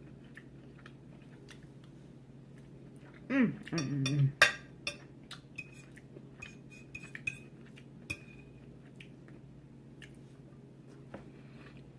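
Eating utensil clinking and tapping against a plate in scattered light clicks, a few with a short ringing ping, with a brief hummed voice sound about three and a half seconds in.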